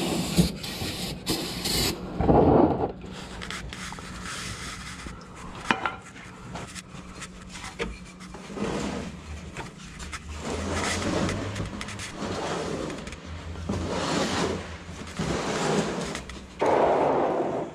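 A cloth rag rubbing and wiping against the metal underside of a car in repeated scrubbing strokes about a second apart, with some clicks and scuffs near the start.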